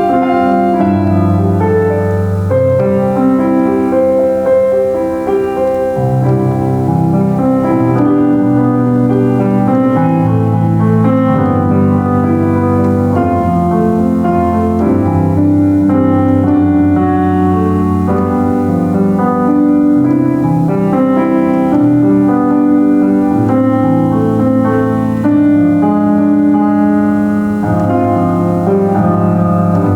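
Solo piano playing a slow hymn-style worship piece, with held chords over a steady bass line.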